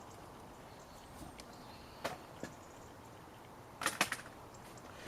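A few short sharp clicks and knocks from socket tools working on the oil filter housing cap: one about two seconds in and a small cluster near four seconds, with a faint hiss between.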